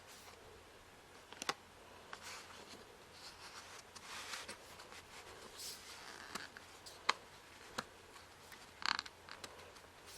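CD packaging being handled: scraping and rustling as discs and sleeves are moved, with a few sharp clicks and taps, the loudest near the end.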